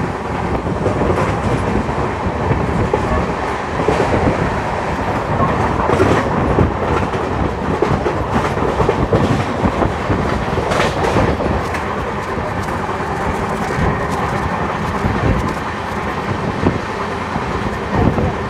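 Passenger train coach running at speed, heard from its open doorway: a steady rumble of wheels on the rails with a few sharper clacks over rail joints.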